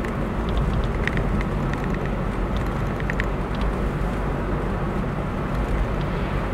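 Steady road and engine noise of a moving car heard from inside the cabin, with light ticking rattles now and then.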